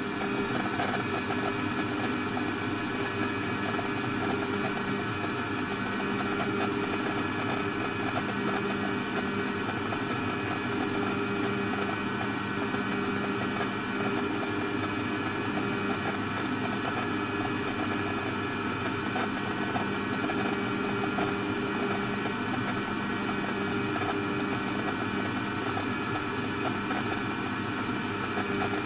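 Steady machine-like hum with several held tones over an even hiss, unchanging.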